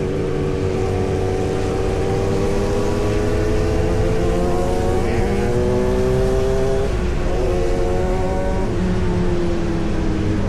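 Big-bike motorcycle engine running under way. Its pitch climbs slowly for about seven seconds, breaks briefly around a gear change, then falls away near the end.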